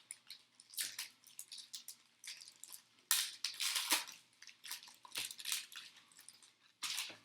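Trading-card pack wrapper being torn open and crinkled in the hands, with cards rustling, in a run of short, uneven crackles that are loudest around the middle.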